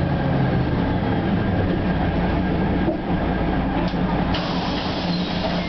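Ikarus 260 city bus's diesel engine running as the bus drives, heard from inside the passenger cabin with body and window rattle. The engine note shifts about three seconds in, and a brighter hiss joins about a second later.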